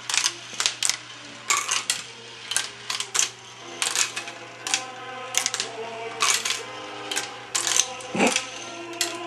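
Marbles clicking and clattering on a plastic marble run with a wire spiral funnel, in irregular sharp taps a few a second, with one heavier knock about eight seconds in.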